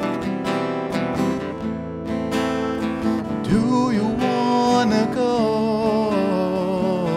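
Acoustic guitar strummed in a steady rhythm. About three and a half seconds in, a man's voice joins with long held, wavering notes over the strumming.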